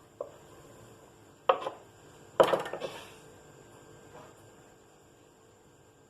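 Several light wooden knocks and clatters from a rolling pin on a rolling board as dough is rolled out thin, loudest in a quick cluster about two and a half seconds in.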